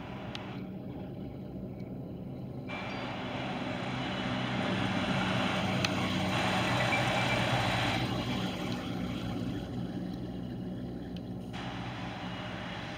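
Fire engine's diesel engine and tyres passing close by: the sound swells to a peak about six to seven seconds in, then fades as the truck moves away, over a steady engine hum.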